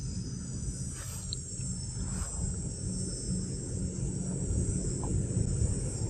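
Steady high-pitched chorus of forest insects, over a continuous low rumble.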